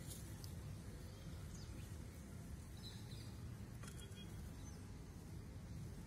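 Quiet outdoor ambience: a steady low rumble of wind or microphone handling, with a few faint, short bird chirps scattered through it.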